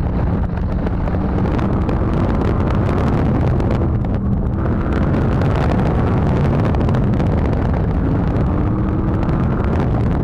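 Open-cockpit sports car's engine running hard through an autocross course, its pitch rising and falling as the driver accelerates and lifts between the cones.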